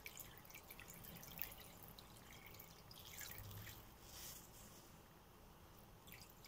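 Water trickling from a large plastic bottle down a wooden spatula into a frying pan of pearl barley: faint dripping and light splashing as the pan is topped up.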